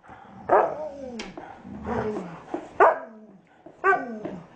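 Puppies play-fighting, giving about five short barks a second or so apart, each falling in pitch.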